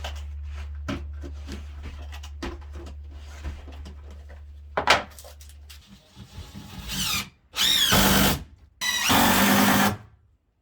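Power drill-driver driving screws through subfloor decking into the joists: three short runs of the motor in the second half, each winding up in pitch and then slowing. Before them, small knocks and clicks over a low steady hum.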